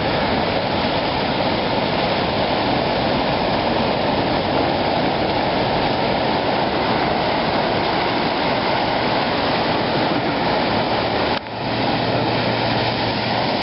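Floodwater rushing: a loud, steady wash of water noise, briefly broken about eleven seconds in.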